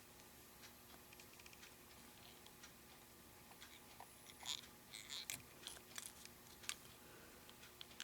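Near silence, with faint irregular clicks and brief soft rustles, more of them in the second half, from hands working thread and materials at a fly-tying vise.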